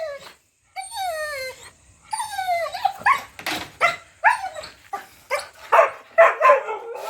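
Labrador dog whining in falling cries, then yipping and barking in short quick calls from about three seconds in, excited and impatient.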